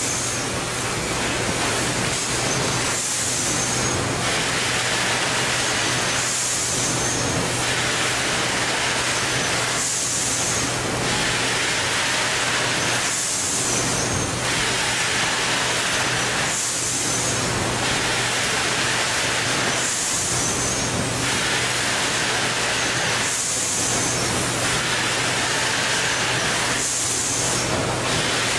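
Automatic bag-packaging machine line running: a steady low machine hum, with a hissing burst that comes back about every three and a half seconds as the machine cycles.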